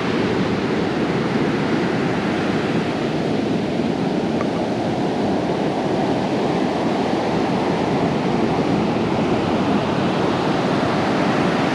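Ocean surf breaking on the beach: a steady, continuous roar of waves.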